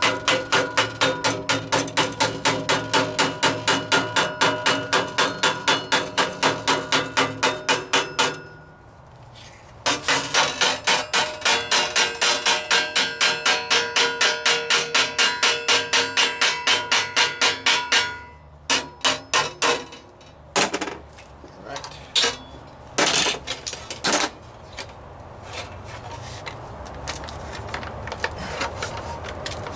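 Hammer driving a block into sheet metal to tap in a stiffening bead for a floor pan patch, in place of a bead roller. The blows come fast and even, about four a second, with a metallic ring. They stop for a couple of seconds, run on steadily, then give way to a few scattered strikes.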